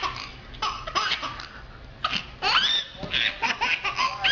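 Baby laughing in repeated short breathy bursts, with a couple of high squeals that rise in pitch.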